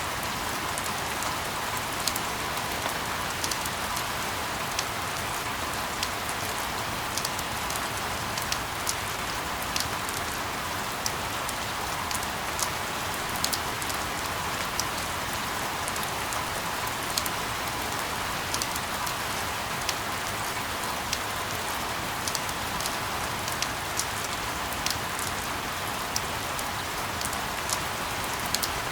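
Steady rain falling, a continuous hiss with scattered sharp drop ticks.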